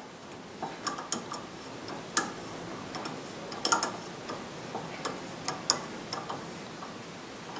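Light metallic clicks and ticks at irregular intervals from a tap handle turning a Time-Sert insert driver, which is driving a tapered thread insert into a stripped head-stud hole and locking it into the cylinder's wall. The turning gets tougher as the insert is expanded into the wall.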